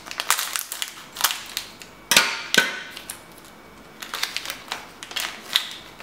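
Metallised anti-static plastic bag crinkling and crackling as it is handled and opened and a circuit board is slid out, a run of sharp crackles with one loud snap about two seconds in.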